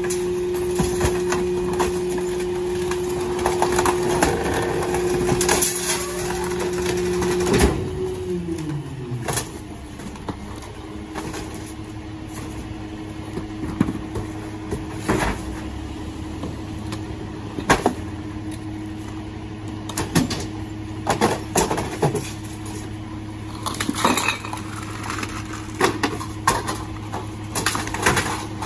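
Rear-loader garbage truck's engine running at raised revs for the packer hydraulics, its pitch falling to idle about eight seconds in. Then it idles while bulk waste is thrown into the hopper, with repeated sharp clanks and cracks of wood, metal and plastic.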